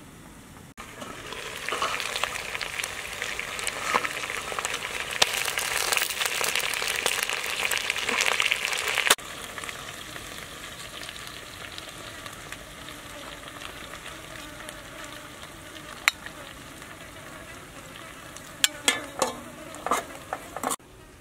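Food sizzling and crackling as it cooks, loud and steady for several seconds, then stopping abruptly. After that, quieter handling noise with a few sharp clicks and knocks near the end.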